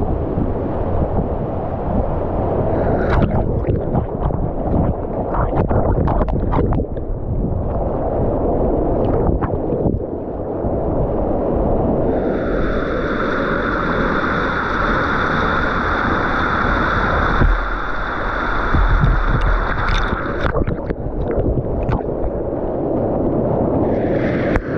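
Floodwater rushing and churning below a low-head dam, heard from a camera at the water's surface, with many splashes knocking against the camera. For about eight seconds past the middle it turns to a steadier, higher hiss with a thin whistling tone, then the churning returns.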